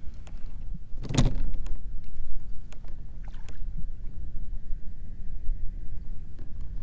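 A bass in a landing net being hauled aboard a kayak: one loud thump about a second in and a few lighter knocks and clicks as the net comes in over the boat, over a steady low rumble of wind and water.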